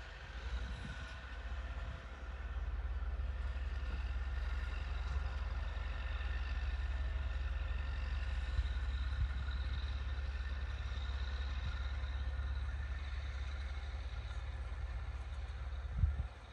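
Steady drone of distant Massey Ferguson tractors' diesel engines working a field, under a continuous low rumble of wind on the microphone. A short thump comes near the end.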